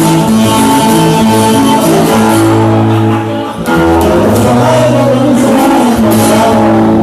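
Music of plucked and strummed guitars over a low bass line, with some singing.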